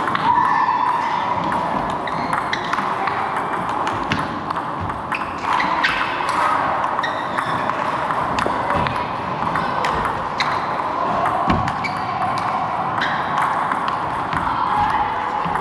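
Table tennis ball clicking off the bats and the table in irregular sharp ticks, over a steady background noise.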